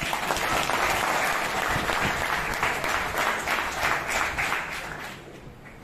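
Audience applauding: many hands clapping, starting abruptly and dying away over the last second or so.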